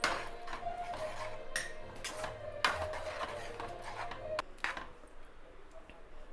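Metal spoon clinking and scraping against a cooking pot, with a few sharp knocks spread through the stirring.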